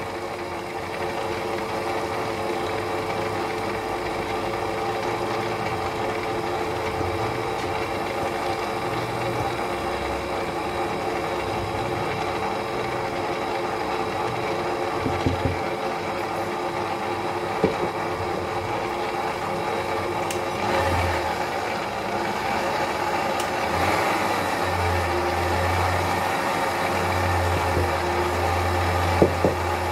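Electric stand mixer running steadily, its beater turning through egg-and-sugar batter as flour is added. A few light knocks, and a deeper hum joins in during the last few seconds.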